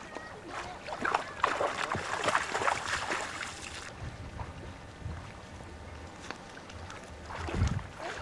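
Shallow water lapping and splashing at the edge of a beach, busiest in the first few seconds, then quieter, with a low rumble of wind on the microphone.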